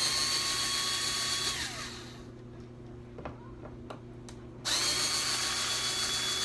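Power drill driving screws, run twice in bursts of about two seconds, its whine falling away each time the trigger is let go. A few light clicks between the runs.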